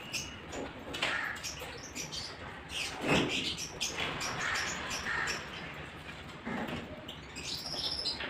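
Birds chirping in the background, with a brief high chirp near the end, over irregular clicks and knocks.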